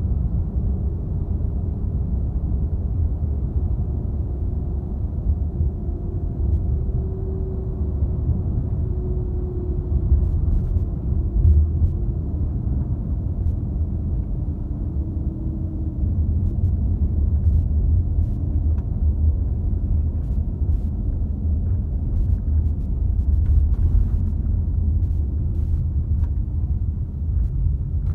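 Steady low rumble of a coach's engine and tyres at motorway speed, heard from inside the passenger cabin, with a faint drone that drifts slowly in pitch.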